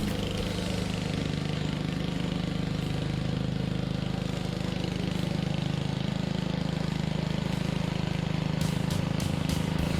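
Grass-cutting machine's engine running steadily at a constant speed.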